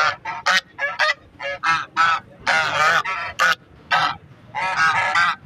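A pair of domestic geese honking over and over, about a dozen loud calls in quick succession, mostly short, with a longer drawn-out honk a little past midway and another near the end.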